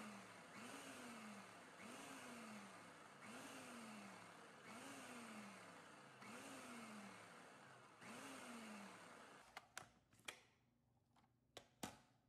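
Countertop food processor pulsed again and again, about seven short whirs roughly a second and a half apart, each spinning up and coasting down, as it cuts butter and flour into crumbly pie dough while cold water is added. The pulsing stops near the end, followed by a few sharp clicks.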